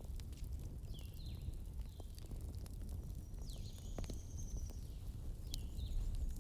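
Bonfire burning, with scattered crackles and pops over a steady low rumble. Short high chirping whistles come every second or so, and a longer high whine runs for about a second and a half around the middle.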